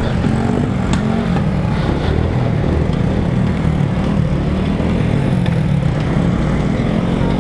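Small motor scooter engine running steadily under load while pushing through deep floodwater, its pitch rising and falling a little, under a steady hiss of rain and splashing water.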